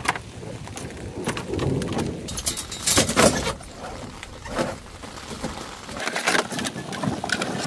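Tent mesh and fabric rustling and crumpling in irregular bursts as it is bundled up by hand, with a few sharper knocks of handling, over a low rumble of wind that eases near the end.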